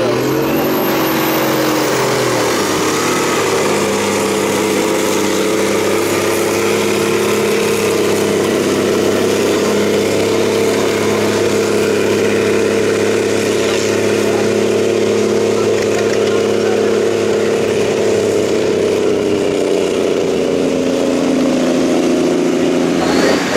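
Farm tractor's diesel engine working hard under full load, pulling a weight-transfer sled in a tractor pull. It is a loud, steady drone that holds its pitch, then drops lower near the end.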